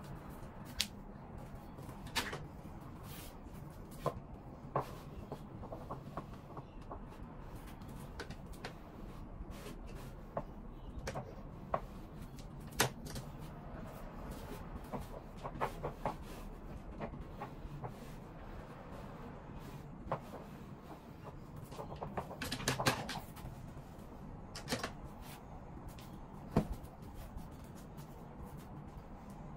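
Clothes and wooden hangers being handled: scattered clicks and knocks with a busier stretch of knocking and rustling about three-quarters through, over a steady low hum.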